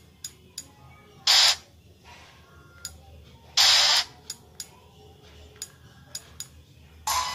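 Sony PSP's menu clicking with short ticks as the game list is scrolled, broken by two loud short bursts of noise, about a second in and near four seconds in. A game's preview music starts near the end.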